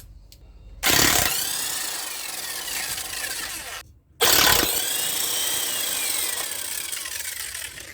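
Aerosol penetrating spray hissing from the can in two long bursts, each about three seconds, with a sharp start and stop: it is being sprayed onto a badly rusted suspension link nut to loosen it.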